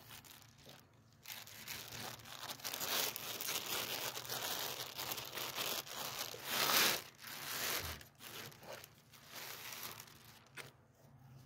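Clear plastic bag crinkling and rustling as it is pulled and crumpled off an air rifle by hand, in irregular bursts that are loudest a little past the middle.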